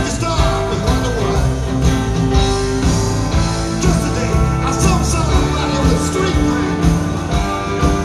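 Live rock band playing a song, with electric guitars, keyboards, bass and a drum kit keeping a steady beat under a lead vocal.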